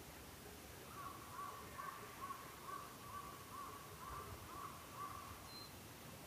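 A crow calling in a quick run of short, repeated caws lasting about four seconds, over a low steady background hiss.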